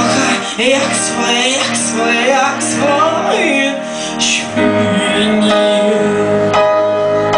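Live band music: a woman singing with sliding, wavering pitch over a low steady bass, giving way about halfway through to steady held notes.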